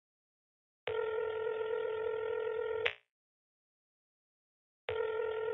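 Ringback tone of an outgoing call heard through a mobile phone's speakerphone: a steady low beep lasting about two seconds, starting about a second in, then silence, then the next ring starting near the end. The call is ringing at the other end and has not yet been answered.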